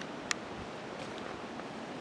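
Footsteps and gear rustle on a dirt woodland trail under a steady rush of wind on the microphone, with one sharp click just after the start.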